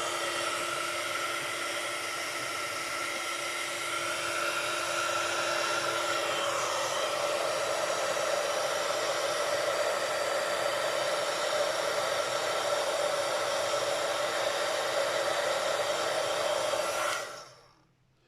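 Embossing heat tool blowing hot air steadily, a fan's rushing noise with a steady whine, melting white embossing powder on card stock. It is switched off about a second before the end.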